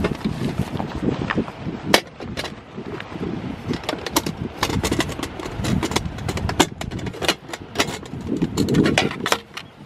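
Square aluminium mess tin being handled on a metal tabletop: a run of irregular metallic clicks and clinks from its lid and wire bail handle, with a low rumble of wind on the microphone underneath.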